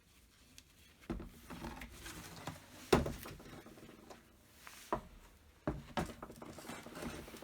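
Small workshop handling noises: several sharp knocks and clinks, the loudest about three seconds in, with light rattling and rubbing between them.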